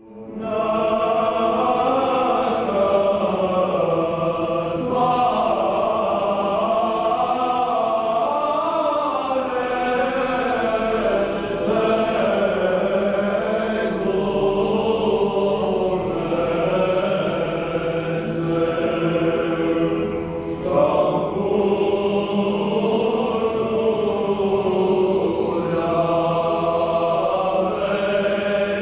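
Church choir chanting an Orthodox hymn, several voices singing together in continuous, flowing phrases.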